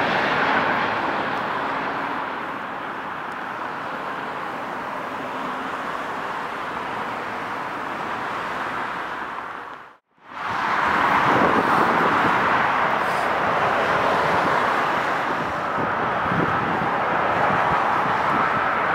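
Airbus A330 jet engines on final approach, a steady rushing noise that fades out to silence about ten seconds in. The noise of a second A330 on approach then fades back in and holds steady.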